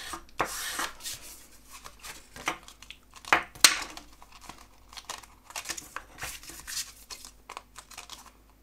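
Cardstock being handled and pressed in the hands, rustling and crackling, with two sharp cracks a little over three seconds in. It is a stiff glued card panel, made rigid by wetting, embossing and heating, being pressed onto its folded card base.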